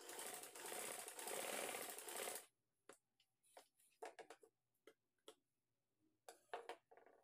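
Sewing machine running for about two and a half seconds as it stitches the joint of an elastic band, then stopping abruptly. Afterwards there are scattered soft clicks and rustles as the elastic is handled.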